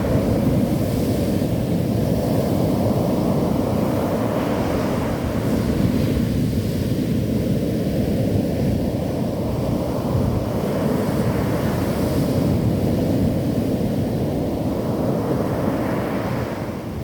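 Ocean surf breaking on a beach: a steady low rush of water, with brighter swells of wash a few seconds apart as waves come in.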